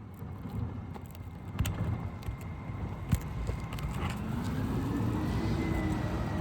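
A few sharp metal clicks of a hammer and nail puller working a roofing nail out of an asphalt shingle, then a passing car's engine hum that grows louder and rises slightly in pitch from about four seconds in.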